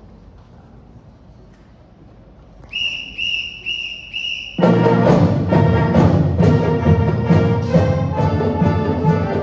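Four short, evenly spaced whistle blasts count off, then a high school band with drums comes in playing loudly.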